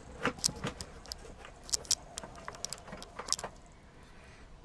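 Irregular small clicks and light rattles of camera gear being handled as a RØDE VideoMic GO II shotgun microphone is fitted onto a camera. The clicks thin out near the end.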